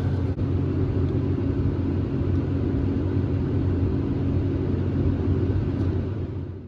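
Steady low drone of a combine harvester's engine running while harvesting corn, heard from the cab; it fades out at the very end.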